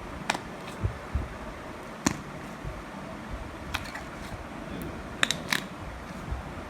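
Slime being squeezed and worked by hand, giving irregular wet squelches, soft low pops and sharp little clicks, with a sharper cluster about five seconds in.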